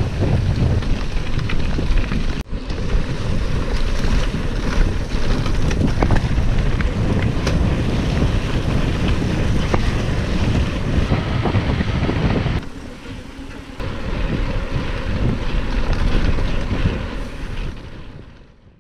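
Wind buffeting the microphone of a GoPro action camera on a moving mountain bike, over the rumble of tyres on the road and scattered clicks and rattles from the bike. It drops for about a second two-thirds of the way through and fades out at the end.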